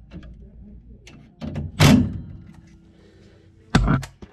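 Knocks and thuds of metal being handled while working on a gas furnace: a few light clicks, a heavy thud about two seconds in, and a sharp knock near the end.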